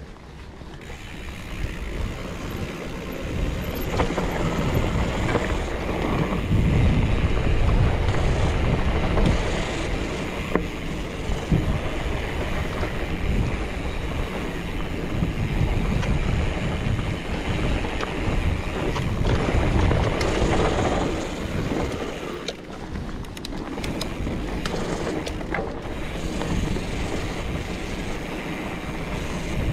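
Wind buffeting the camera microphone and tyres rumbling over a dirt trail as a mountain bike descends at speed, growing louder over the first several seconds as speed builds. Scattered sharp knocks and rattles from the bike over bumps, clustered past the middle.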